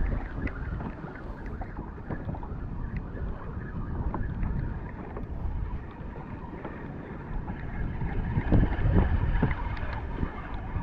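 Wind buffeting the microphone over water lapping against a fishing kayak's hull, with a few faint ticks. The gusts are strongest about eight to nine seconds in.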